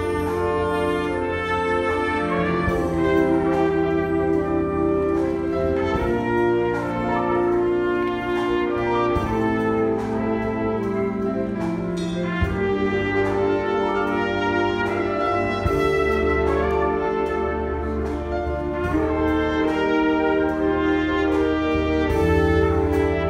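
Live wind orchestra with piano playing full, sustained chords over a low bass line.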